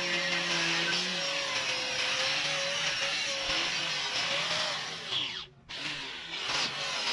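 Electric angle grinder working on stainless steel railing tube: a steady hissing grind over a motor whine that wavers in pitch. It cuts out for a moment about five and a half seconds in, then carries on.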